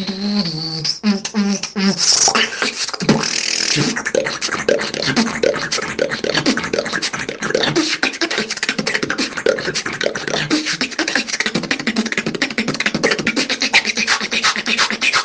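Beatboxing: a fast, dense stream of percussive mouth clicks and hits, with brief pitched vocal tones in the first second.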